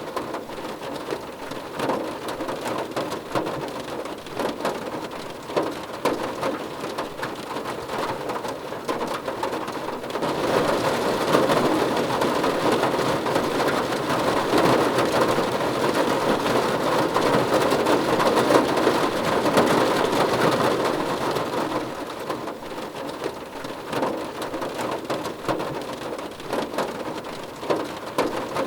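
Rain falling on a car's roof and glass, heard from inside the car as a steady patter of drops. It swells heavier for about twelve seconds in the middle, then eases back.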